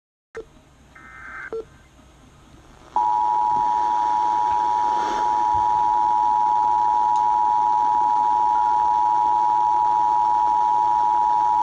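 Emergency Alert System two-tone attention signal (853 Hz and 960 Hz sounded together), a loud steady tone that starts about three seconds in and cuts off abruptly near the end, announcing the state's Required Monthly Test.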